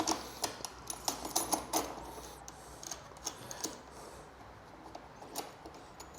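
Clicks and clinks of a metal exhaust mounting bracket and its hardware being handled and fitted to a motorcycle: a quick run of them in the first two seconds, then a few scattered ones.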